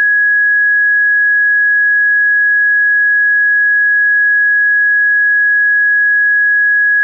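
A loud, steady, high electronic pure tone, held at one unchanging pitch without a break, with a much fainter higher tone above it.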